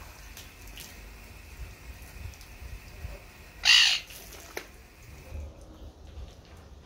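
One short, harsh animal call about halfway through, over a faint steady hiss of running hose water.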